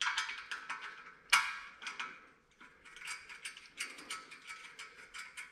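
Hand ratchet clicking in quick runs as a bolt is turned into a steel rivet nut (nutsert) to draw it up and seat it in the bender stand, with one sharper metal knock about a second and a half in.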